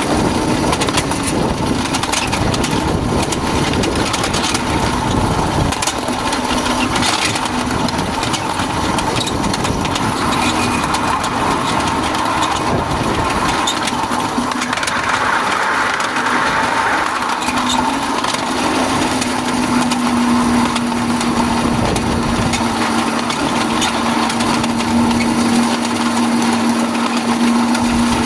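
Miniature ride-on train rolling along small-gauge track: a steady rumble and clatter of steel wheels on rail, with a running small engine. The clatter gets brighter for a few seconds about halfway through while crossing a steel truss bridge, and a steady hum sits under it through the last third.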